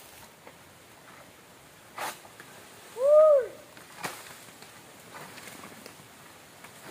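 A single short hooting call, rising and then falling in pitch, with a knock about a second before it and another about a second after.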